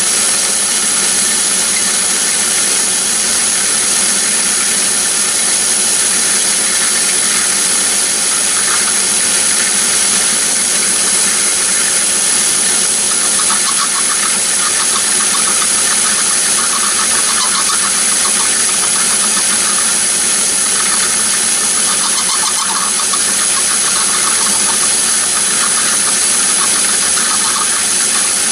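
Myford ML7 lathe running steadily with a boring bar cutting inside the bore of the spinning workpiece, rough-boring it to just under finish size. A steady high whine from the lathe, with a faint scratchy cutting sound through the middle.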